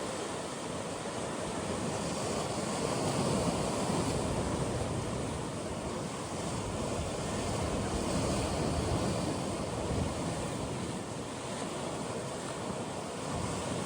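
Atlantic waves washing in among coastal rocks, a steady surf with gentle swells in level as the waves come and go. Wind on the microphone adds a low rumble.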